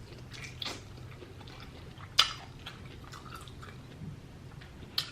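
Close-up chewing and wet mouth sounds of a person eating, with a few short sharp smacks or clicks, the loudest about two seconds in and another near the end.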